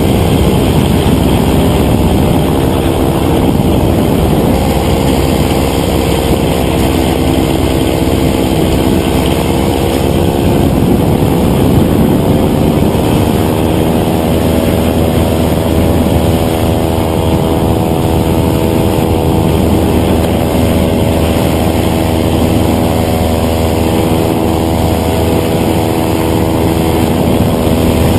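Paramotor engine and propeller running steadily in flight, close to the pilot. The engine note rises a little and grows clearer about halfway through.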